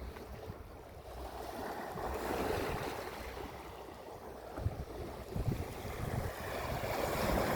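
Ocean waves washing onto the shore: the surf swells about two seconds in, eases, and builds again toward the end. Low gusts of wind rumble on the microphone in the second half.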